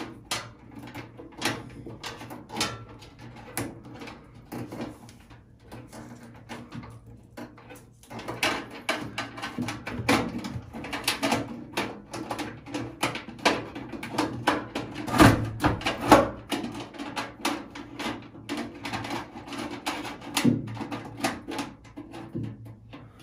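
Handling noise from wiring a medicine cabinet's light fixture: scattered clicks, taps and rattles of wires and fixture parts, busier from about eight seconds in, over a faint steady low hum.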